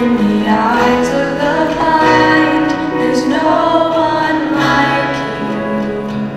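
A young woman singing a worship song into a microphone, held notes sliding between pitches, over a strummed acoustic guitar, heard through a PA system.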